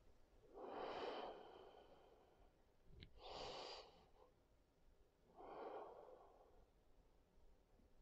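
Faint, slow breathing through the nose: three soft breaths a little over two seconds apart, with a small click just before the second.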